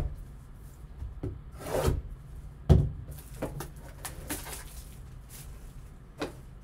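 A small cardboard box being taped shut and turned over in gloved hands: swishing rubs and scrapes, with a sharp knock a little under three seconds in, and smaller clicks after.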